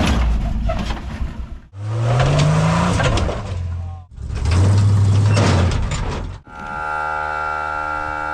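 Off-road buggy engine revving in several short, abruptly cut bursts, one climbing in pitch as it accelerates. About six and a half seconds in, it gives way to a steady electronic hum with a high whine over it.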